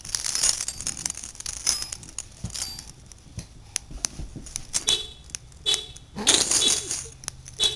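A bunch of keys jangling and clinking in a small child's hands, shaken in irregular bouts, loudest a little after six seconds in.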